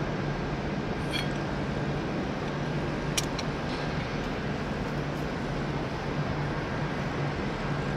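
Steady low mechanical hum like an engine running in the background, with two light metal clicks about a second in and about three seconds in, from socket tools on the sprocket bolts.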